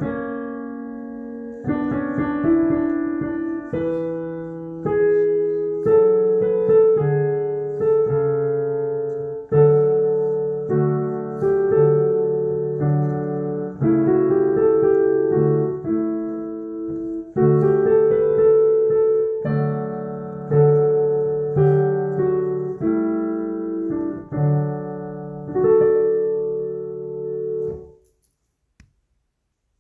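Slow solo piano music, chords struck one after another and left to ring out. It stops shortly before the end.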